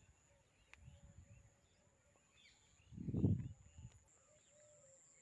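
Faint open-field ambience with scattered short bird chirps, and a brief low rumble on the microphone a little past halfway.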